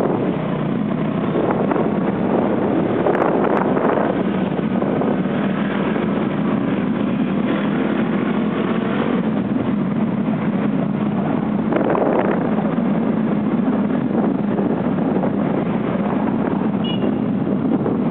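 Motorbike engine running steadily under way, with wind buffeting the microphone from the pillion seat.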